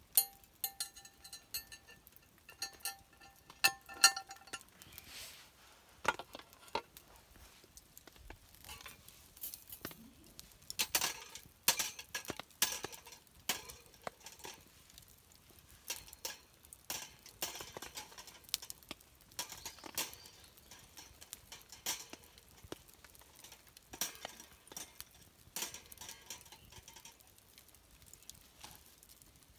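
Scattered clinks, taps and light knocks of utensils and cookware being handled. Several metallic clinks ring briefly in the first few seconds.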